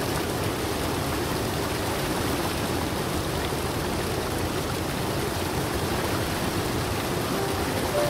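Steady rushing of a stream pouring over a small rocky cascade, an even wash of water noise.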